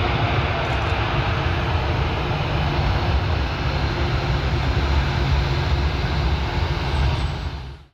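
Airbus A340-600's four Rolls-Royce Trent 500 jet engines running as the airliner rolls out on the runway after touchdown: a steady jet roar with a deep rumble underneath. It fades out quickly at the very end.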